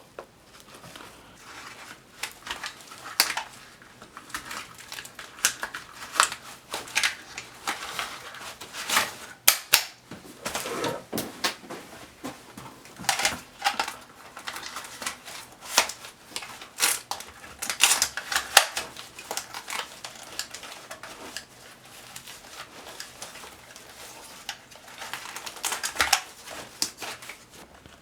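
Hands handling a nylon plate carrier and its magazine pouches: irregular clicks, knocks and rustling of webbing and plastic.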